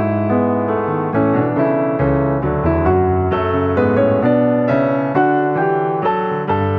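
Background piano music: a gentle melody of single notes struck a couple of times a second over held chords.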